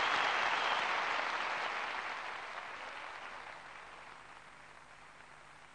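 Audience applauding, fading away steadily.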